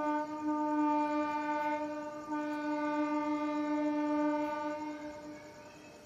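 Horn of an approaching Bandel–Katwa local train: one long, steady blast with a brief break partway through, fading out near the end.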